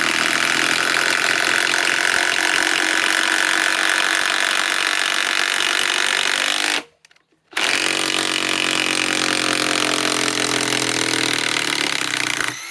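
Cordless impact wrench (DeWalt DCF891 mid-torque) hammering under load on a 10-inch lag screw, in two long trigger pulls with a brief stop about seven seconds in. During the second pull its pitch sinks slightly.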